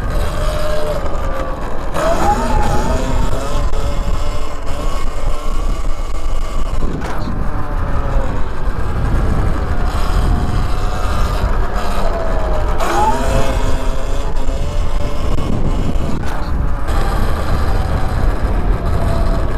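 Wind rumbling on the microphone outdoors, with a passing vehicle's tone sliding in pitch about two seconds in and again near thirteen seconds in.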